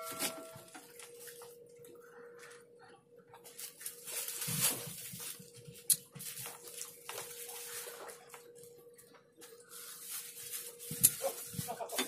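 Outdoor ambience of a steady hum with scattered light knocks and rustles, a sharp click about six seconds in and a louder knock near the end, over faint voices in the background.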